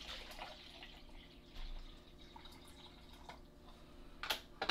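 Faint trickling and dripping of water being added to the tank of a Hornady Lock-N-Load Sonic Cleaner, with two sharp knocks near the end.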